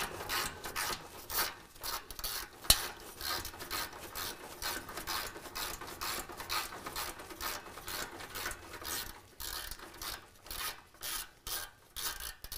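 Ratchet with a 15 mm socket loosening the nut on an exhaust band clamp: repeated rasping ratchet strokes, about two a second, with one sharp click about three seconds in.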